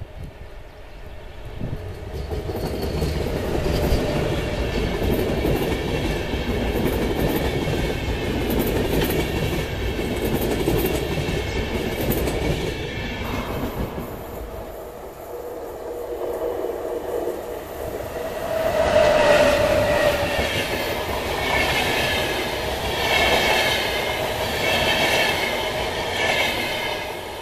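An electric-hauled InterCity train with double-deck coaches passing close by. There is a steady rumble of wheels on rail with a high whine. After a dip about halfway through, it grows louder again with a rhythmic clickety-clack of the wheels over rail joints.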